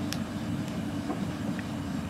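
A railway passenger carriage running along the track, heard from inside: a steady low rumble with a few faint clicks.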